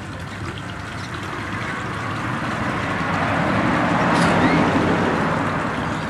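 A road vehicle driving past: a rush of tyre and engine noise that swells, peaks about four seconds in, and fades.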